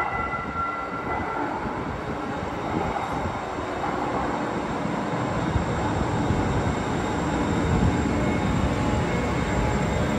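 TriMet MAX light-rail train pulling into an underground station platform, its running rumble slowly growing louder as it draws near.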